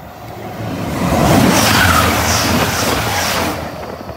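Hitachi Azuma high-speed train passing through the station at speed. Its rush of wheel and air noise swells, holds loud for about three seconds, then fades as it goes by.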